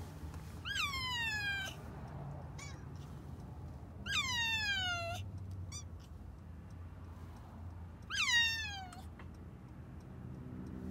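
A kitten meowing three times, long drawn-out meows about four seconds apart, each jumping up in pitch and then sliding down. The kitten has just been spayed or neutered and is not happy about it.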